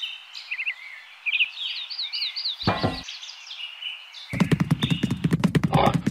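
Birds chirping with short, high, falling calls over a steady outdoor hiss, with a brief thunk a little before the middle. A bit after four seconds a loud run of rapid pig grunts starts.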